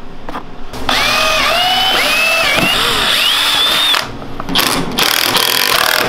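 Red Milwaukee cordless power driver with a socket, driving a bolt through the rack to fasten the new rear fender. It runs in a long whining pull of about three seconds, its pitch dipping and recovering as the bolt takes load, then gives several short bursts of the trigger near the end as the bolt is snugged down.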